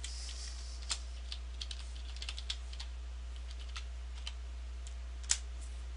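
Computer keyboard being typed on: scattered single keystrokes, with one louder key press near the end, over a steady low hum.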